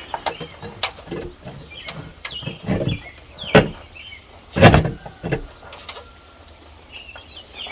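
Irregular knocks and clunks of a porch light fixture and its metal mounting plate being handled against the wall box while the wires are pushed in, the loudest about three and a half and almost five seconds in. Birds chirp faintly in the background.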